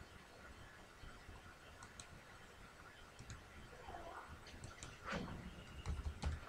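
Sparse, faint clicks of a computer mouse, a few at a time, over quiet room noise, with a soft low-pitched rustle about five to six seconds in.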